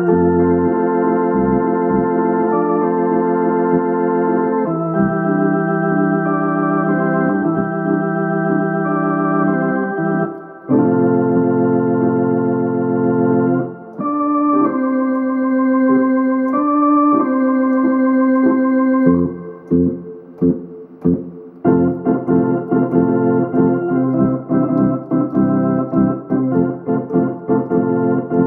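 Hammond C3 tonewheel organ playing held chords and melody over a bass line. About two-thirds of the way through, the playing turns to short, detached chords in a steady rhythm.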